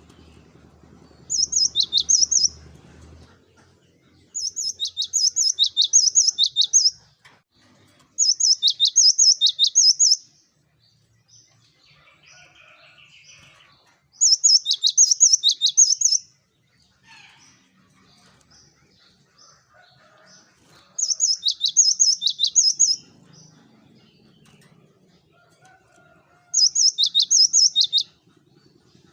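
Cinereous tit (gelatik batu) singing: six bursts of quick, high repeated notes, each lasting about two seconds, with pauses of a few seconds between them.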